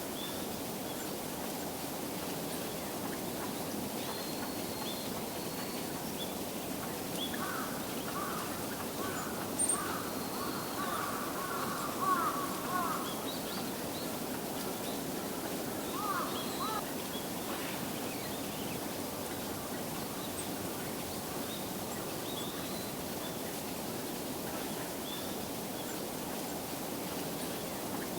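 Wild birds calling over a steady outdoor background hum. Faint, short, high calls come now and then throughout, and a run of lower, wavering calls comes about a third of the way in, with another call a few seconds later.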